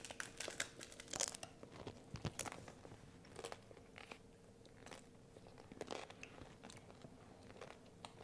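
Hard corn taco shells crunching as they are bitten and chewed: faint crunches, several in the first couple of seconds, thinning to scattered chewing sounds after.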